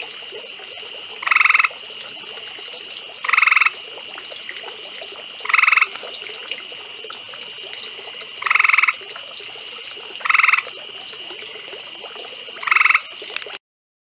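A male gray treefrog calling: short, loud musical trills, six of them at roughly two-second intervals, over a steady high-pitched background drone. The sound cuts off abruptly near the end.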